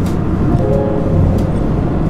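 Steady low rumble of a car driving on an expressway, heard from inside, under background music with a few held notes.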